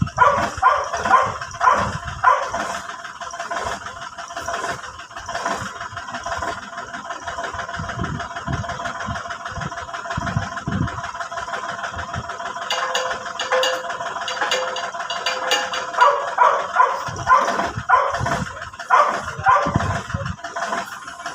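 Backhoe engine running steadily while a dog barks repeatedly, in clusters near the start and again in the last few seconds.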